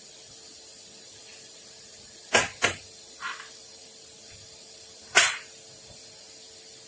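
A kitchen knife knocking against a plate while cutting a peeled roasted tomato into pieces: two quick sharp knocks about two and a half seconds in, a softer one just after, and one loud knock about five seconds in, over a faint steady hum.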